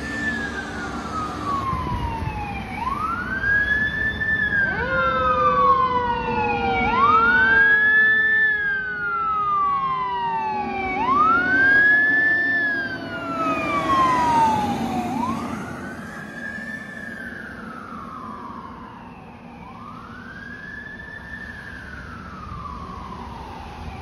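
Fire truck sirens wailing, each cycle rising quickly and falling more slowly, about every four seconds. A second, lower siren tone slides downward through the first half. The sound fades after about fifteen seconds as the trucks move away.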